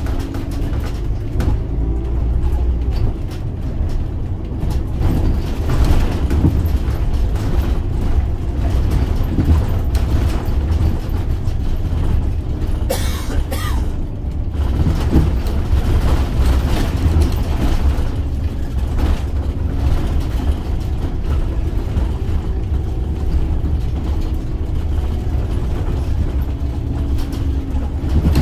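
Scania OmniLink three-axle bus with a biodiesel engine driving, heard from inside the passenger cabin: a steady low engine and road rumble with rattles from the body and fittings, and a brief hiss about halfway through.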